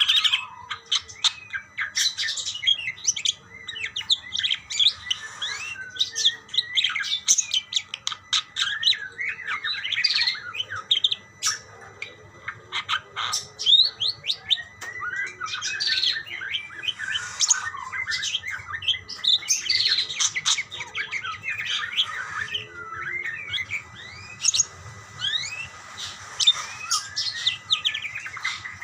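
Several budgerigars (parakeets) chirping and warbling back and forth in an unbroken, overlapping chatter of short chirps and trills.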